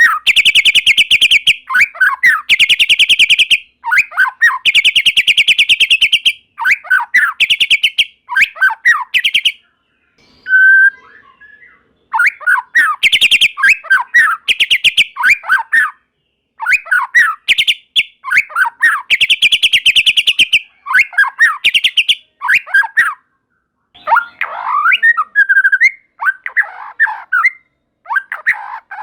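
White-rumped shama singing: bursts of fast, harsh rattling trills alternate with quick whistled notes that sweep downward. There is a short pause with a single brief whistle about a third of the way through.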